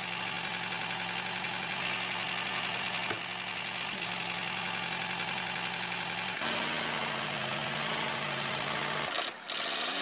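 A small motor runs steadily with an even mechanical hum, its pitch shifting slightly about six seconds in and breaking off briefly near the end.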